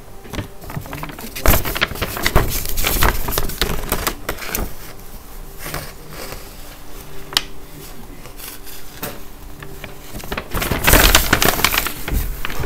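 Large paper map being handled and shifted right against the microphone: irregular rustling and crackling of the paper with sharp knocks and bumps, loudest near the end.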